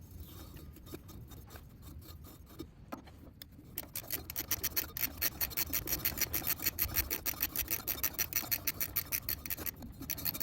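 Ratchet wrench clicking quickly and evenly, about seven or eight clicks a second, starting about four seconds in after a few seconds of quieter handling noise, as the oil filter is tightened back on with a new O-ring.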